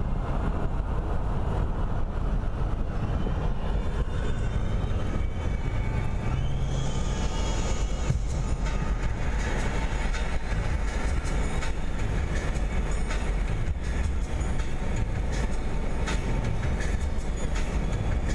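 Steady low rumble of tyres and wind heard from inside a car cruising on a highway, with light ticks in the second half.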